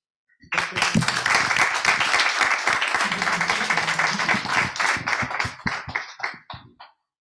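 Small audience applauding. Dense clapping starts about half a second in, thins to a few scattered claps, and stops shortly before the end.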